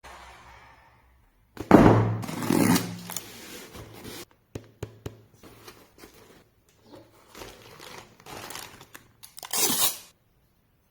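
Packaging of a toy RC car being opened and handled: a loud tearing rip about two seconds in, then crinkling, scraping and a few sharp clicks, and another loud rip near the end.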